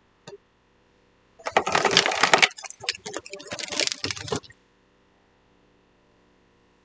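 Plastic marker-pen bowling pins clattering and clacking against each other and the lane as a string pinsetter hoists them up, a dense rattle of clicks lasting about three seconds.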